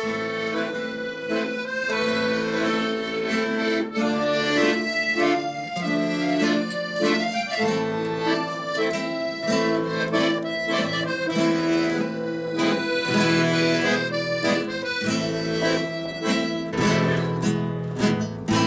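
Accordion and acoustic guitar playing together: the accordion holds sustained melody notes over strummed guitar chords, an instrumental introduction to a Greek song.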